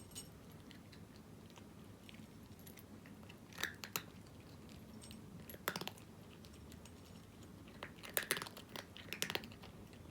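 A cat crunching dry kibble in short bursts of chewing a couple of seconds apart, with two quick bursts near the end.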